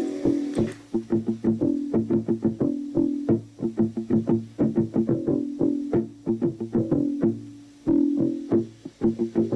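Background music: a run of quick plucked guitar notes over a bass line.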